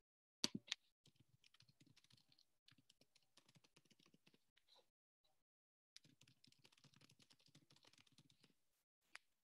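Faint typing on a computer keyboard: two runs of rapid key clicks, with a few louder single clicks near the start and one near the end.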